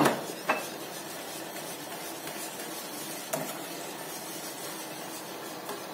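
Wire whisk stirring a milk and salep ice-cream base in a stainless steel pan, a steady swishing scrape, with a sharp clink at the very start. The stirring is kept up without pause so the thickening salep milk does not stick or go lumpy.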